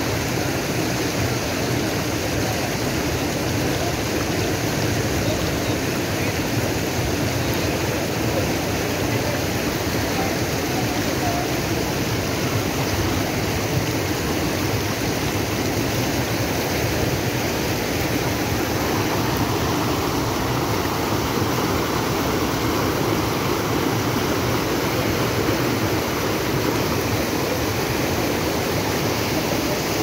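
Shallow mountain stream rushing steadily over rocks in white-water rapids.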